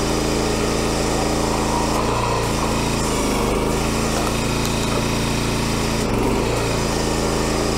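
Small gas engine of a 22-ton log splitter running steadily, driving the hydraulic pump while the rebuilt cylinder pushes the wedge through a log. The engine note wavers twice, between about two and three seconds in and again about six seconds in.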